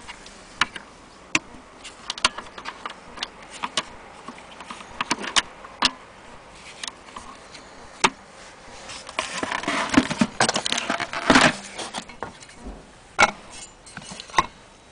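Irregular clicks, taps and light rattles of the old gramophone's parts being handled, with a busier spell of clattering about ten seconds in.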